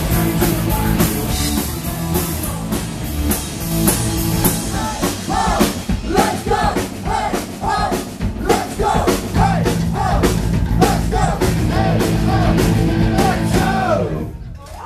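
Live punk rock band playing: drum kit, electric guitar and electric bass, with shouted vocals over them. The music drops away in the last second.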